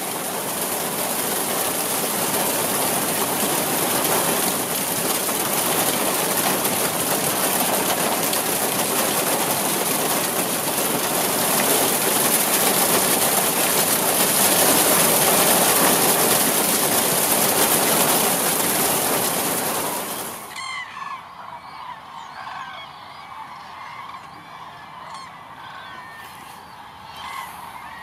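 Heavy rain falling in a loud, steady hiss. About twenty seconds in the rain cuts off suddenly and a large flock of common cranes is heard calling, many overlapping calls.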